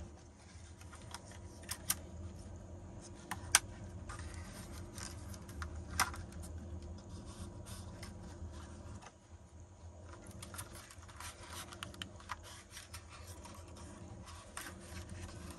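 Handling noise from a small folding DJI drone and its foam-lined plastic carry case: scattered clicks, light taps and scraping as the drone is lifted and its folding arms and propellers are moved. A few sharper clicks stand out in the first six seconds, over a low steady rumble.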